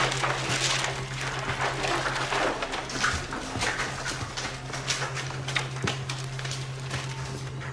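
A person crying, with irregular breathy sobs and whimpers over a low steady hum.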